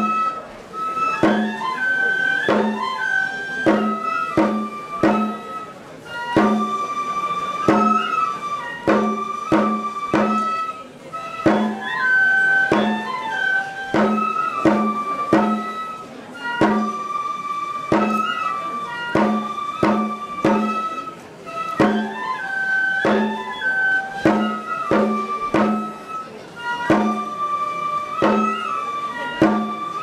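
Traditional Japanese shrine-festival music accompanying the shirosuri rice-field dance: a flute plays a short melody of held notes that repeats every few seconds over regular drum beats.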